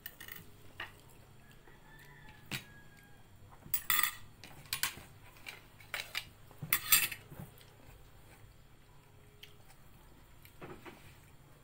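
Spoons and ceramic plates and bowls clinking while people eat: scattered short clinks, a few close together around four seconds in and the loudest around seven seconds in, then only a couple of faint ones.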